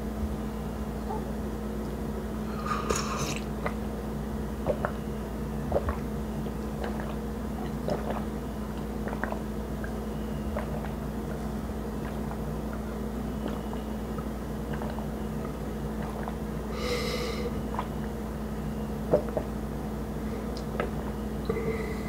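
Close-miked chewing of food: soft scattered mouth clicks over a steady low hum. There are two brief louder swishes, about three seconds in and again about seventeen seconds in.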